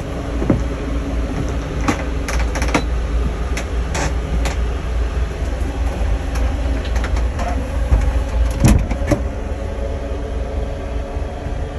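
Coach bus driving, heard from inside: a steady low rumble with scattered clicks and knocks, the loudest about two and a half and nine seconds in.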